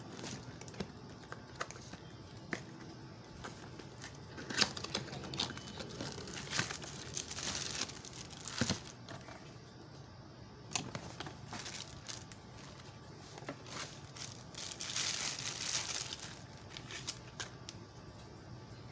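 Packaging being handled: a cardboard box opened and a plastic bag crinkled and pulled off a small heat gun, in irregular bursts of rustling with sharp clicks.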